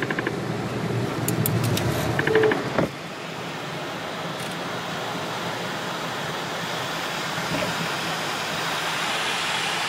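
Aircraft takeoff heard from inside the cockpit: engine noise under the rumble and rattling of the wheels on the runway. The rumble stops abruptly about three seconds in as the aircraft lifts off, leaving a steady hiss of engine and airflow noise during the climb.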